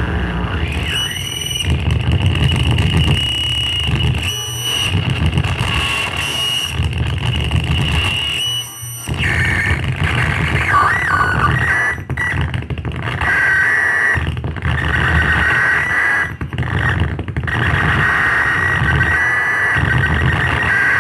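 Electronic noise improvisation from effects pedals and small electronics: held high whines over a dense low rumble, broken several times by brief sudden cutouts.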